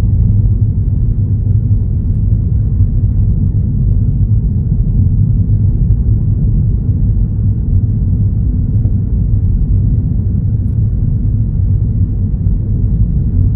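Steady low road and engine rumble of a car being driven, heard from inside the cabin.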